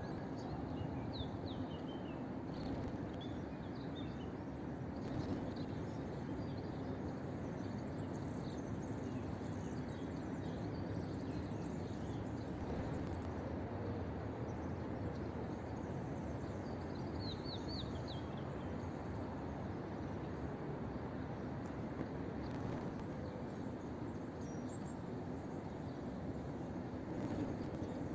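Steady outdoor background noise, low and even throughout, with a few small birds chirping over it: short high falling chirps about a second in, again a couple of seconds later, and a quick run of them a little past halfway.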